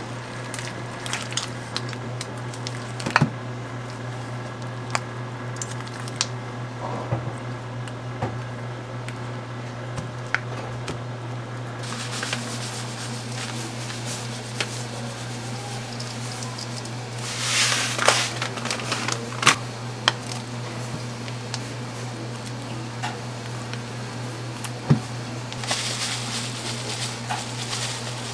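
Cream cheese being worked and scraped by hand in a stainless steel bowl: soft squishing with scattered clicks and taps against the metal, and a brief rustling burst about two-thirds of the way through. A steady low hum runs underneath.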